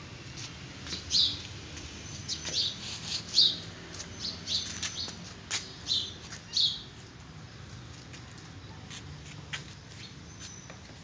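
A small bird chirping outdoors: a series of short, high chirps in quick succession that stop about two-thirds of the way through.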